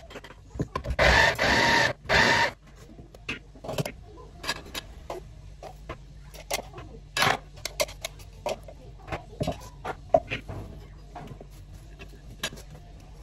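Electric mini chopper whirring in a short pulse about a second in, chopping onions and vegetables. After it stops come scattered clicks and knocks of a utensil scraping the chopper bowl and a knife cutting tomatoes on a plate.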